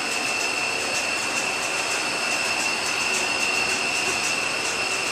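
Steady mechanical hiss with a constant high-pitched whine running through it, unchanging throughout.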